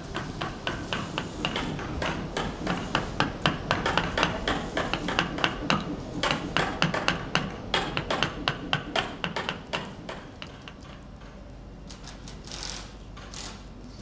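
Rapid, uneven knocking and tapping, several knocks a second, thinning to a few scattered ones after about ten seconds.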